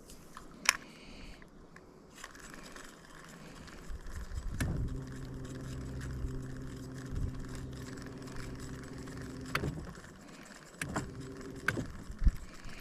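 Electric trolling motor running with a steady hum for about five seconds, stopping, then running again briefly; a few sharp clicks and knocks around it.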